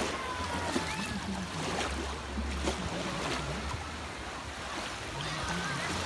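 Baltic Sea waves washing onto the beach in a steady rush, with wind rumbling on the microphone now and then.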